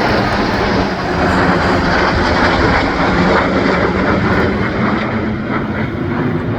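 Aircraft flying over, its engines loud and steady.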